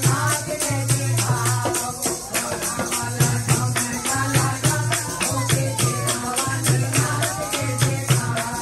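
Devotional kirtan music: a bhajan being sung over jingling hand percussion that keeps a fast, steady beat, with a low pulsing accompaniment underneath.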